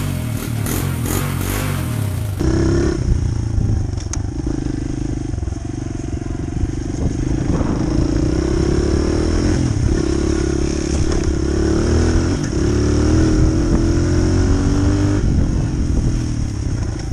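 Honda CRF100F dirt bike's small air-cooled single-cylinder four-stroke engine under way, its note climbing and dropping again and again as the throttle is worked and it changes gear.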